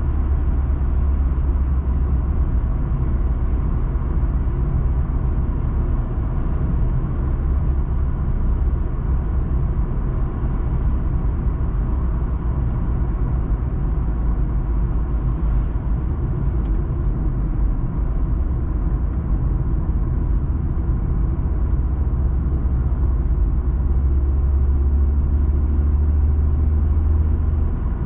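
Steady road noise of a car driving at speed, heard from inside the cabin: a continuous low rumble of engine and tyres. The low rumble grows stronger for a few seconds near the end.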